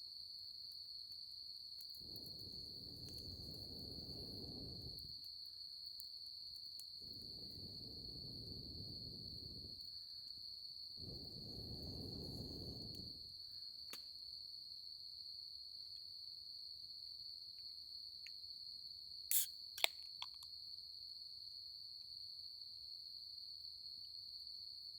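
Crickets chirring in a steady, unbroken high-pitched trill. Three soft low rushing sounds of a few seconds each come in the first half, and two sharp clicks come a little past the middle.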